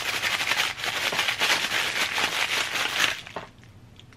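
A white paper packaging bag crinkling and rustling, with the cardboard box rubbing, as an action figure is pulled out of its box, the paper tearing a little at the figure's foot. The rustling stops suddenly about three and a half seconds in.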